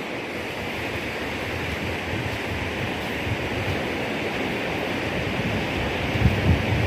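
Steady wash of surf on a beach, with low rumbles building near the end.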